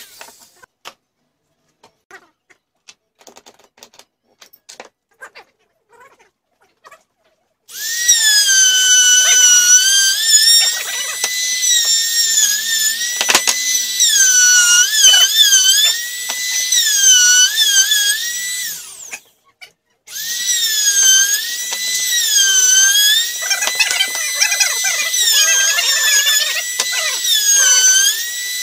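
Handheld electric power tool working into a wooden board in two long runs, starting about a third of the way in, stopping briefly, then starting again. Its high motor whine sags in pitch again and again as it bogs under load and picks back up; before it starts there are only faint handling clicks.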